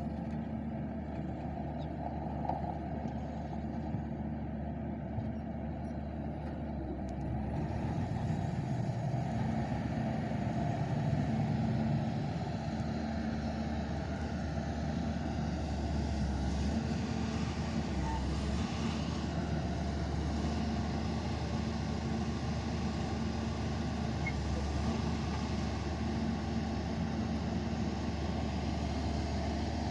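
Heavy diesel engine of a working excavator running with a steady low hum. It grows louder about eight seconds in and eases back slightly about four seconds later.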